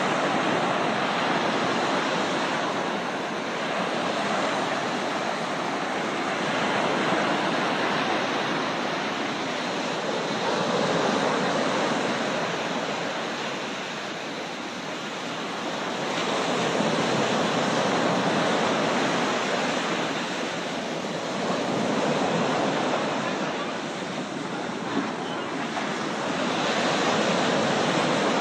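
Rushing water, a steady roar that swells and eases every few seconds, like floodwater or waves.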